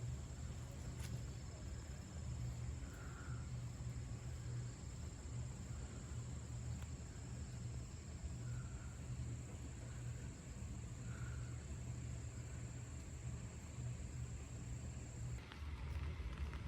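Outdoor ambience: an insect's steady high-pitched trill that stops suddenly near the end, over a low steady rumble, with a few faint calls in the background.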